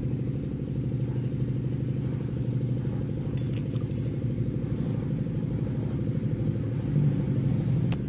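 A steady low mechanical drone from a running engine, slightly throbbing, with a few faint light clicks about three and a half seconds in.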